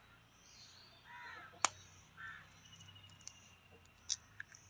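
A spoon tapping and cracking an eggshell over a steel bowl gives a few sharp clicks, the loudest about a second and a half in. A bird calls twice in the background.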